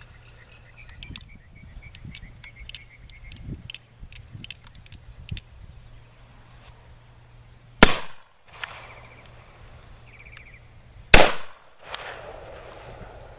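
Two shots from a black powder percussion pistol, about three and a half seconds apart, each followed by a short echo.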